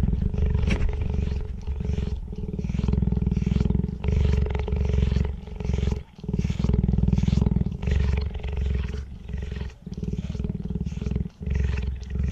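A cheetah purring close by, a deep pulsing rumble broken every second or two by its breaths. Over it comes the raspy stroke of its spiny tongue licking a hairy forearm, about two licks a second.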